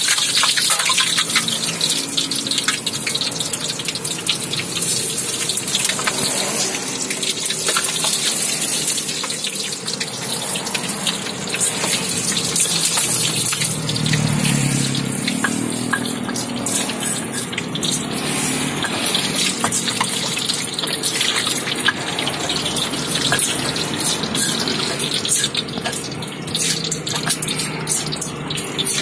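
Tofu deep-frying in a wok of hot oil, a steady loud sizzle that thins out about halfway through. In the last few seconds, short scraping clicks of a stone pestle grinding peanut sauce in a stone mortar.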